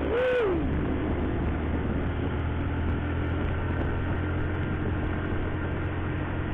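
Motorcycle engine running steadily at cruising speed, with road and wind noise, as picked up by a camera mounted on the bike. A brief rising-and-falling tone sounds in the first moment.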